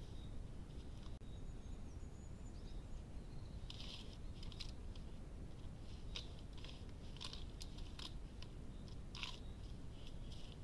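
Brown bear clawing and rubbing against a birch trunk: short dry crackles and scrapes of bark, in irregular clusters from about four seconds in, over a camera's low steady hiss.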